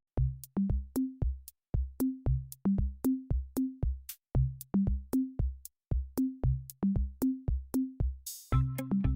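Electronic background music with a steady drum-machine beat: kick drum and short bass notes about twice a second, with ticks on top. Near the end a cymbal-like swell comes in and sustained synth notes join the beat.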